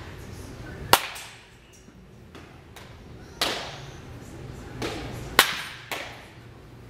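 Wood baseball bat cracking against a ball in batting practice, sharp loud hits about a second in and about five and a half seconds in, with another strong knock about three and a half seconds in and lighter knocks of balls into the cage netting.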